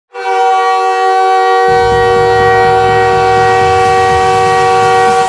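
Montreal Canadiens goal horn sounding one long, steady blast in a chord of several tones. A low rumble joins underneath about a second and a half in.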